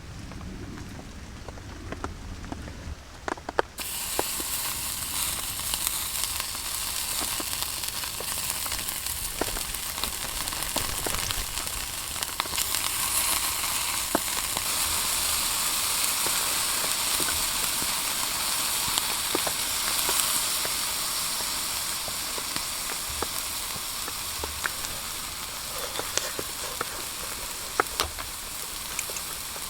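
Heavy rain falling in a steady hiss, with scattered drops ticking sharply. It starts suddenly about four seconds in.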